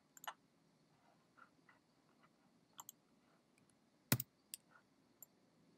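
A handful of sparse, faint clicks from a computer mouse and keyboard while the tour-building software is operated, the loudest about four seconds in.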